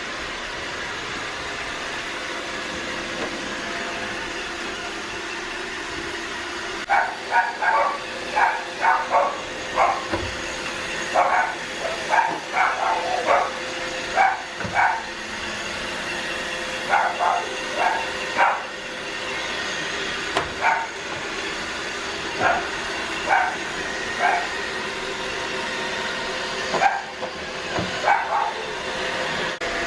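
A dog barking repeatedly in short bursts, in clusters of two to four barks, starting about a quarter of the way in and recurring to near the end, over a steady machine hum.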